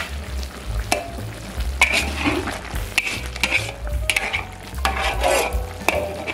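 Spatula stirring and scraping chicken and potatoes in a pan, with irregular scrapes about once a second over a steady sizzle.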